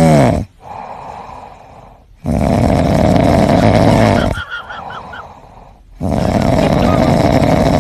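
Loud snoring: three long snores about three seconds apart, each lasting around two seconds, with faint short squeaks in the lull between the second and third.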